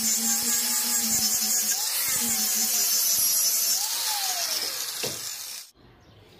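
Angle grinder with a sanding disc running against the wooden blade of a cricket bat, the motor's pitch dipping and recovering as the disc bears on the wood. Near the end the pitch falls away, and the sound cuts off abruptly, leaving quiet.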